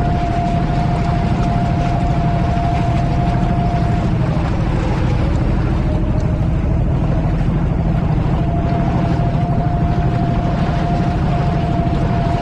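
A catamaran's motor running steadily under way, with water rushing and splashing along the hull. A steady whine sinks slightly in pitch about four seconds in and comes back up about four seconds later.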